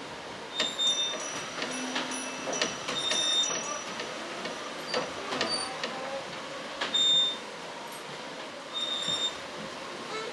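Scattered metallic clanks, scrapes and short high squeaks from found-object percussion instruments, with a louder clatter about seven seconds in.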